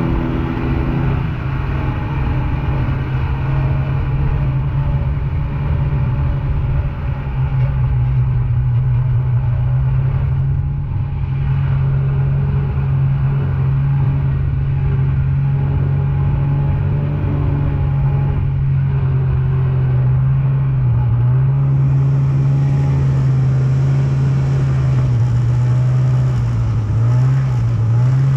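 Snowmobile engine running steadily at cruising speed, its pitch nearly constant, with a couple of brief dips and rises in revs near the end.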